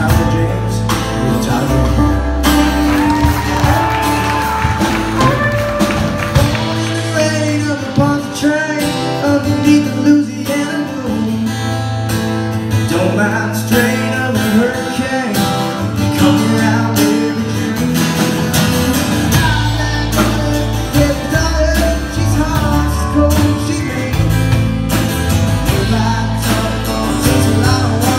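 Country-rock band playing live: drums, bass, and electric and acoustic guitars in an instrumental stretch. The bass and kick drop out about six seconds in and come back in full about thirteen seconds later.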